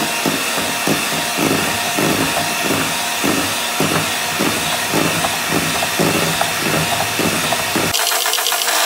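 Electric hand mixer running, its beaters whirring through egg whites and yolks in a stainless steel bowl while mixing sponge cake batter. A regular pulsing runs through it about twice a second, and the sound changes slightly near the end.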